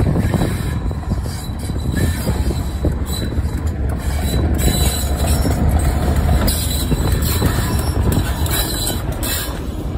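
Class 31 diesel locomotive 31271 passing close by, its English Electric diesel engine running with a steady low drone as it hauls its train. From about halfway in, the coaches' wheels add a higher rushing and squealing on the rails.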